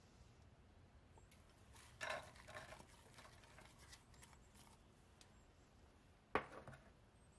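Chopped onions tipped from a glass bowl into a glass baking dish, landing with a soft patter about two seconds in. Near the end comes a single sharp knock of glass, the loudest sound.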